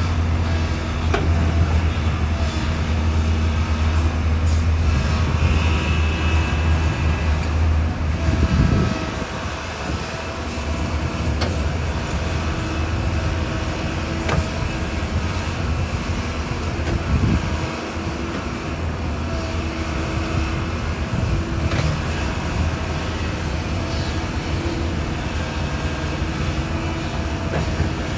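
Excavator working: its diesel engine runs steadily under load with a deep drone, and scattered metallic clanks and knocks come from the machine working the soil. The low drone eases a little about nine seconds in.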